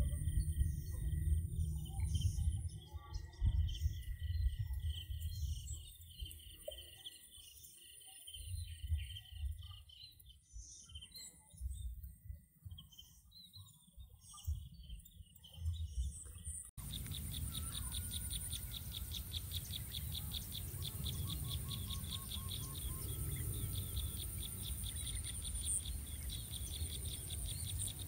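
Outdoor forest ambience. For the first half, birds chirp over a heavy low rumbling on the microphone. About two-thirds of the way through, the sound cuts to a steady hiss with insects trilling in a rapid, even pulse.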